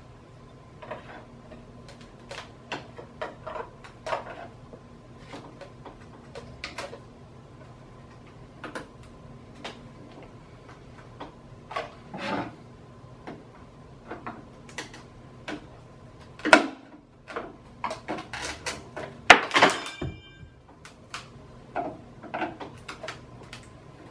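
Scattered clicks, taps and cracks from a screwdriver and small pry bar worked into the flange seam of a fiberglass mold, prying the mold halves apart. The loudest sharp cracks come about two-thirds of the way through, with a quick cluster of cracks and a brief ring just after.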